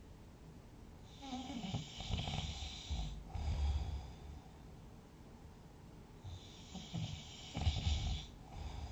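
A sleeping person snoring. There are two loud snores about five seconds apart, each a rough, hissy rasp with a deep rumble, trailing off into a lower rumble before a quieter pause.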